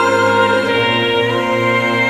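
Background music: sustained instrumental notes held for long stretches.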